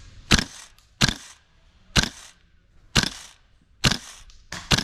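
Airsoft gun fired in single shots, a sharp crack about once a second, with the last two shots close together near the end.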